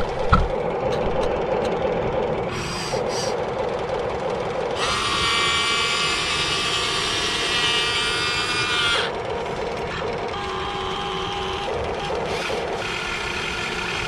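Electric gear motors of a Huina 1550 RC excavator whining as it swings and lifts a log, under a steady lower hum; a louder, higher whine sets in about five seconds in and stops about four seconds later.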